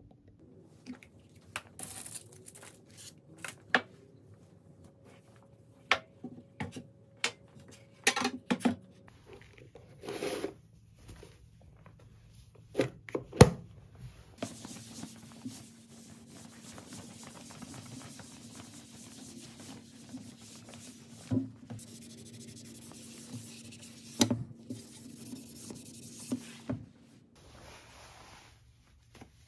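Room-tidying handling noises: bedding and clothes rustling and rubbing, with scattered clicks and knocks of objects being picked up and set down. Partway through, a low steady hum starts and runs for about twelve seconds, then stops.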